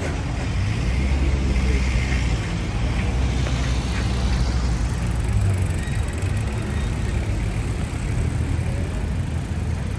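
Street traffic: motor vehicle engines running close by, a steady low rumble that is loudest in the first half as a vehicle passes.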